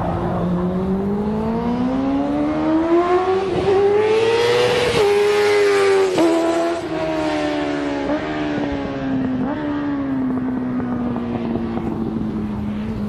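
Motorcycle engine revving: its note climbs steadily for about five seconds, then slowly falls back, with brief dips in the note several times along the way.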